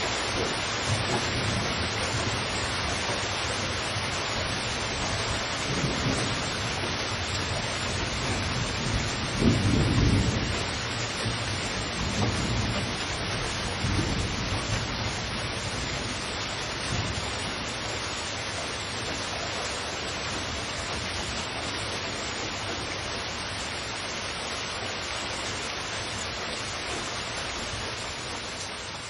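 Heavy rain falling steadily, with low thunder rumbling several times, loudest about ten seconds in.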